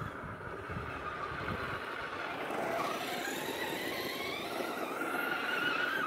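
Electric motor and drivetrain of a Traxxas RC truck running, a whine that rises and falls in pitch with the throttle, a little louder in the second half.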